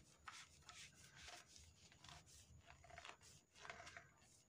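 Faint plastic rubbing and scraping with small clicks as the nut of a poly pipe compression fitting is screwed tight by hand.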